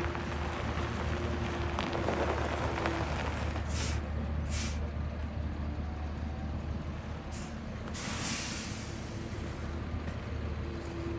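Scania tipper truck idling with a steady low hum and a steady whine that drops out after about three seconds and returns near the end. Compressed air hisses twice briefly about four seconds in, then longer around eight seconds.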